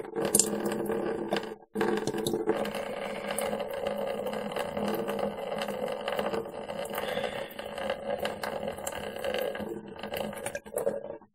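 Nasal saline rinse from a squeezed NeilMed squeeze bottle: steady gurgling and breathing as the salt water is forced through the nose and drains out, with a brief break about two seconds in.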